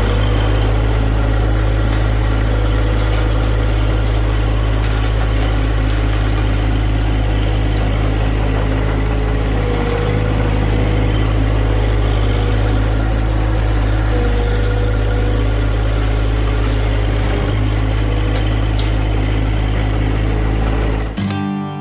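Compact tractor engine running steadily under load, driving a rear-mounted John Deere rototiller that churns through a pile of potting soil. The sound cuts off abruptly near the end.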